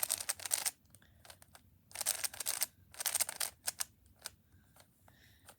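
A plastic Rubik's cube being turned fast by hand: three bursts of rapid clicking layer turns, near the start, about two seconds in and about three seconds in, with scattered single clicks between.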